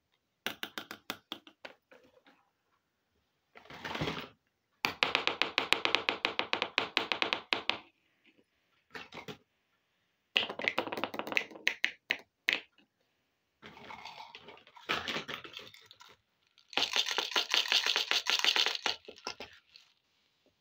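Small plastic toy kitchen pieces being handled and set down: bursts of rapid plastic clicking and crackling, three of them lasting a couple of seconds each, between shorter taps and rattles.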